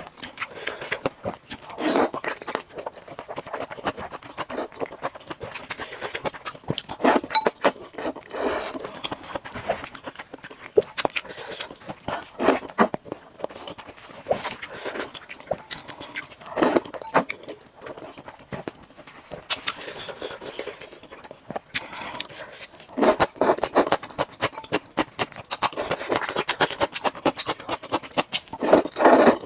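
Close-up eating sounds of a person eating rice noodle soup: slurping noodles and chewing with wet smacks, in irregular bursts. The longest slurps come about 2 s, 7 s, 12 s and 17 s in, and several follow in quick succession near the end.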